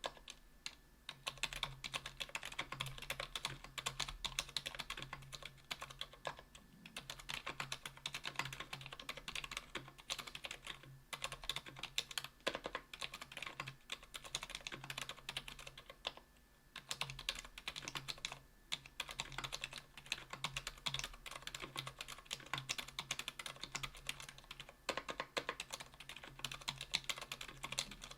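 Typing on a mechanical keyboard with stock Kailh BOX Silent Pink linear switches (45 g) in an aluminum 60% case with an aluminum plate and GMK keycaps. Rapid, continuous keystrokes with a few brief pauses.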